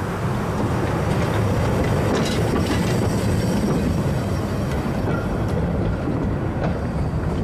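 Narrow-gauge steam train rolling slowly past close by, first the locomotive and then goods wagons. The wheels rumble steadily on the rails, with a few clicks over the rail joints.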